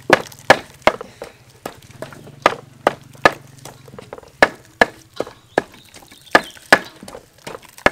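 A wooden pestle pounding in a mortar: about fifteen sharp, uneven knocks, roughly two a second.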